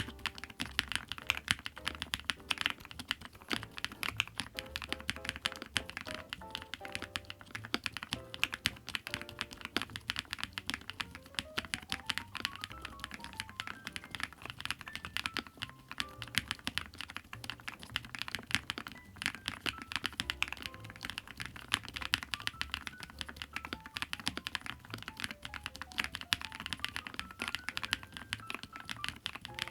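Continuous fast typing on a ZONEX 75 aluminium gasket-mount 75% mechanical keyboard: a dense run of keystroke clacks. Background music with rising and falling melodic runs plays underneath.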